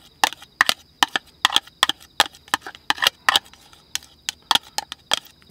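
Rapid, irregular sharp clicks and taps, about five a second, of utensils against a dish while a raw beef and abalone yukhoe is shaped.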